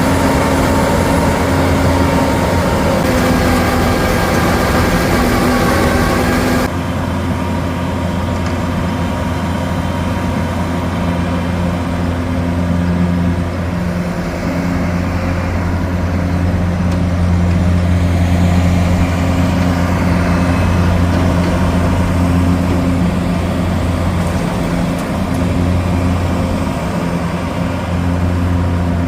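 Heavy vehicle engine running at a steady speed. The higher background sound changes abruptly about seven seconds in while the engine hum carries on.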